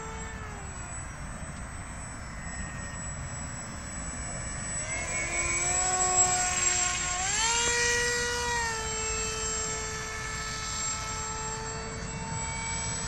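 Radio-controlled model plane's motor and propeller whining in flight. It grows louder as the plane passes close, about five to nine seconds in, and its pitch steps up as the throttle opens before easing back to a steady note.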